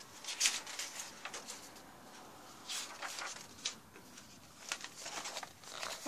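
Paper pages of a softcover colouring book being turned, making several short rustles and flips.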